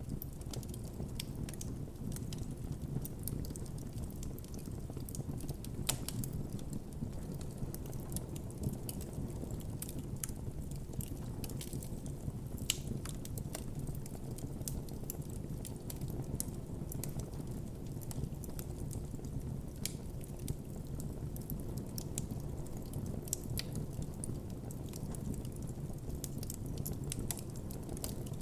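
Campfire burning: a steady low rumble of flames with many irregular sharp crackles and pops of burning wood.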